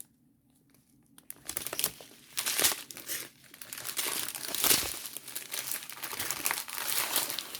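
Plastic bags of diamond-painting drills being handled and sorted, crinkling and crackling unevenly; it starts about a second in, with a few louder crackles.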